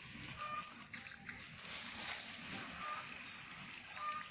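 Water from a garden hose splashing steadily onto plants and soil in a planter.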